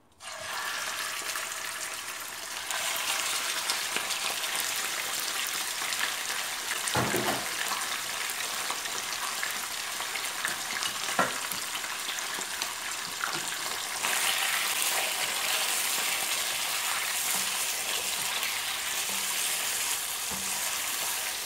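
Raw chicken pieces frying in hot ghee in a pot, a steady sizzle that starts abruptly and grows louder a few seconds in and again about two-thirds of the way through. A couple of short knocks come around the middle, and the pieces are stirred with a spatula near the end.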